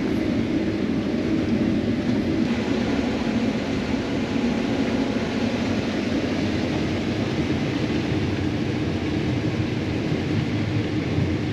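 Combine harvester running steadily while cutting corn: a constant, unchanging drone of engine and machinery.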